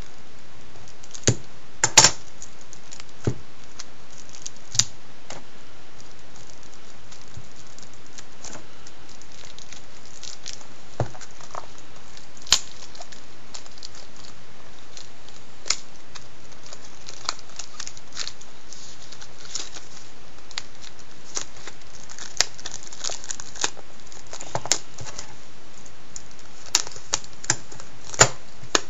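Clear plastic shrink wrap being picked at and torn off a Blu-ray case by hand: scattered crinkles and sharp crackles, some in quick clusters, over a steady background hiss.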